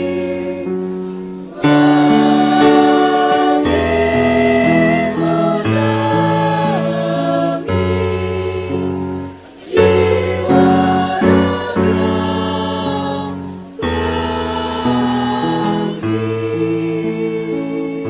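A choir singing a song in harmony, in held phrases with short breaks between them, about a second and a half in, near nine and a half seconds, and near fourteen seconds.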